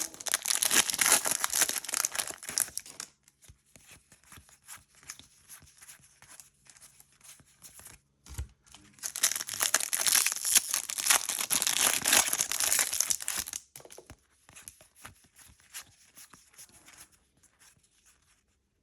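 Foil booster pack wrappers being torn open and crinkled by hand, in two loud bouts with a quieter stretch of small rustles and clicks between them and after.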